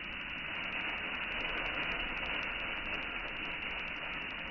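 Uncooked rice grains pouring in a steady stream from a metal tumbler into a pot, landing on the heap of rice already inside, with a continuous even hiss.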